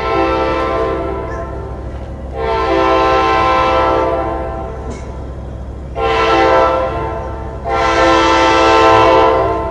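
Approaching train's horn sounding the grade-crossing warning: four loud blasts, long, long, short, long, each a chord of steady tones.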